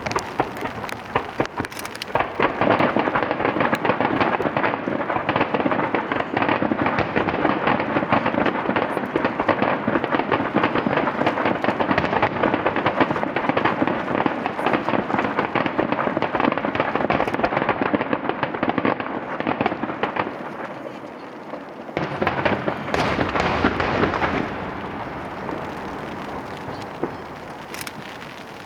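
A star mine, a rapid-fire barrage of aerial firework shells, with many bangs and crackles overlapping into a continuous din. There is a brief lull about three-quarters of the way through, then a last dense flurry, and the sound dies away into echoing booms.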